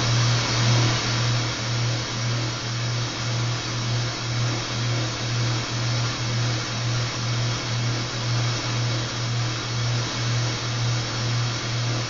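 Soldering torch flame running with a steady hiss, over a low hum that pulses a little more than twice a second, while silver solder is heated on a sterling silver piece.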